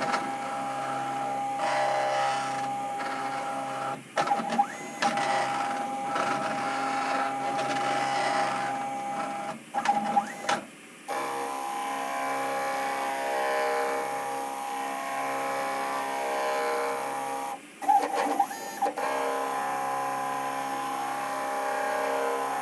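CNC milling machine's axis drive motors running with a steady whine as the table moves a touch probe through an automatic hole-centre-finding routine. The whine stops and starts again a few times, about 4, 10 and 18 seconds in, as each probing move ends and the next begins.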